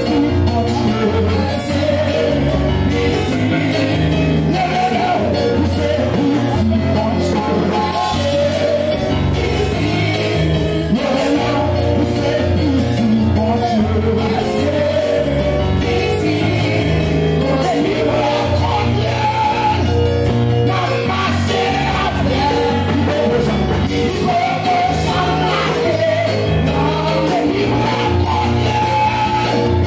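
Loud amplified worship music with a heavy stepping bass line and voices singing, the kind of praise music that accompanies Haitian Pentecostal worship dancing.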